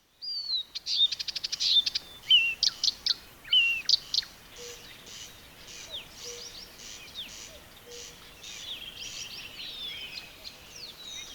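Songbirds singing: for the first four seconds one loud, close bird gives a fast trill of repeated notes and clear whistled slurs, then fainter chirps and whistles from several birds continue.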